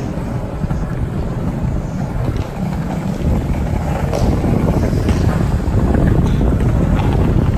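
Skateboard wheels rolling on a concrete garage floor, a steady low rumble, with wind buffeting the moving microphone and a few light clicks.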